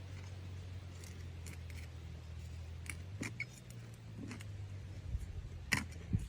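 Small hand shovel digging into soil, with scattered scrapes and clicks as the blade catches on rocks, the loudest near the end. A steady low hum runs underneath.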